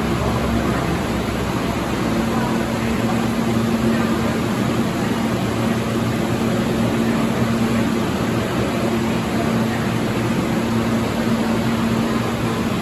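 Subway train standing at the platform with its doors open, its air conditioning and onboard equipment giving a steady rush of noise over a low hum. The hum drops out briefly about half a second in.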